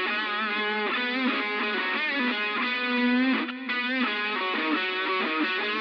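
Distorted electric guitar with effects playing a rock song's intro, thin and without bass as if heard through a small television speaker.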